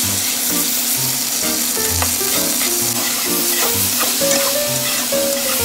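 Sliced pork sizzling loudly as it stir-fries in a hot pan, turned with chopsticks that give occasional light clicks against the pan.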